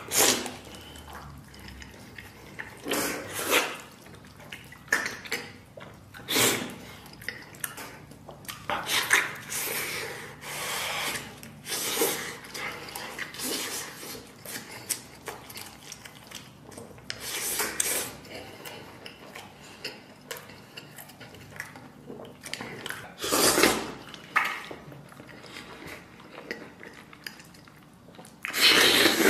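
Eating sounds of a man biting and chewing a soft braised pork elbow held in his hands, with the chewing and mouth noises coming in irregular bursts. Now and then there are small clinks of dishes.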